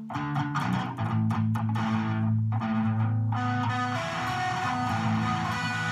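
Electric guitar playing a riff: sharply picked notes over ringing low notes at first, then from about three seconds in a fuller, brighter sound with notes left to ring.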